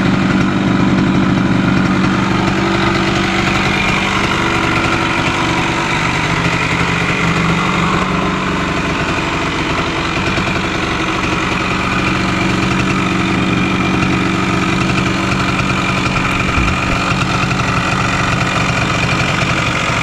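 The two-stroke single-cylinder engine of a 1974 Yamaha Enduro motorcycle running steadily at idle on its new carburetor.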